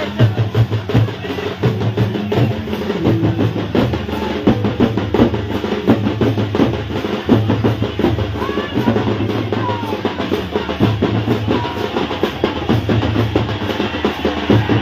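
Music driven by fast, steady drumming over a pulsing bass, without singing for most of its length.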